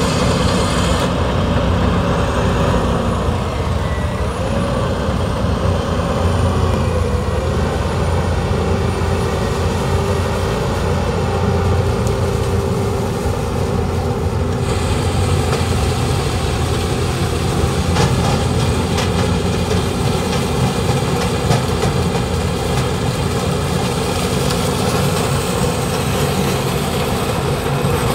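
Case IH sugarcane harvester and a New Holland 3630 tractor running together while harvesting cane: a steady, heavy diesel drone under working load.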